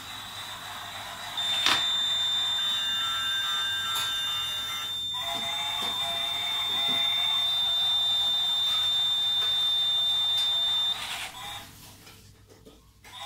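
Model level-crossing buzzer sounding one steady high beep for about nine seconds, warning that the gates are down for the passing toy train. It starts with a click about a second and a half in and cuts off suddenly near the end.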